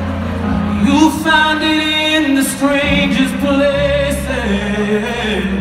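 A male pop singer singing a slow ballad live with band accompaniment, recorded from the audience in a large arena. The voice comes in about a second in with held, wavering notes over a steady low backing.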